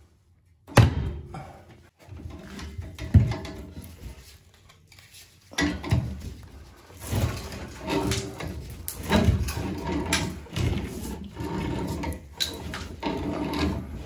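Hammer and chisel working a slit 2-inch copper male adapter out of a threaded fitting. There are two separate hard knocks early on, then from about the middle a dense run of knocking and metal scraping.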